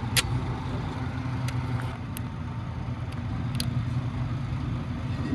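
A steady low engine hum runs throughout, with several sharp metallic clicks and clinks of tools on engine parts.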